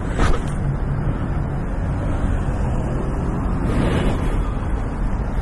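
Steady low rumbling noise of wind buffeting a handheld phone's microphone, with brief louder gusts just after the start and about four seconds in.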